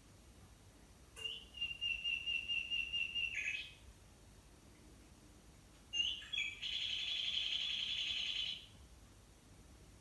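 A bird-song wall clock sounding its hourly chime with a recorded songbird call. About a second in comes a trill of rapid repeated notes ending in a lower buzzy note. About six seconds in a longer buzzy phrase follows, lasting around two and a half seconds.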